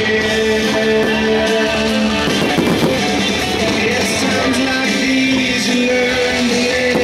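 Rock music with guitar.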